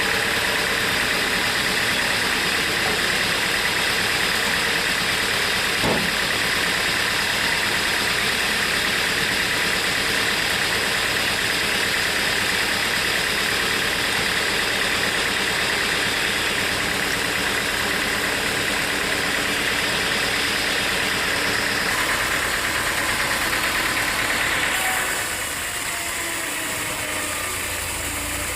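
Sawmill saw running steadily, with a loud, even hiss that fades about 25 seconds in, leaving a quieter steady machine hum.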